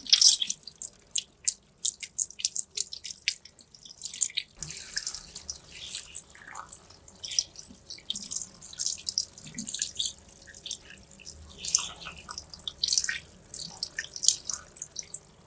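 Water from a handheld shower sprayer splashing and dripping as a man's hair and then his face are rinsed over a salon wash basin: a run of irregular small splashes and drips.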